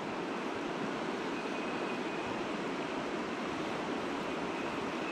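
Steady rushing of a shallow, rocky river, water running over and between the stones.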